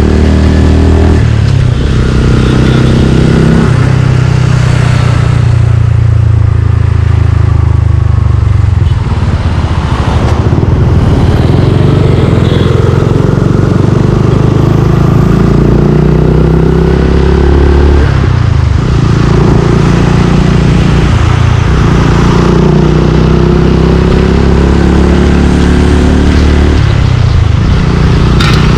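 Suzuki Gixxer 155's single-cylinder four-stroke engine, with an aftermarket exhaust, under way on the street: it revs up and drops in pitch at each gear change near the start, runs more evenly through the middle, then pulls up through several more shifts toward the end.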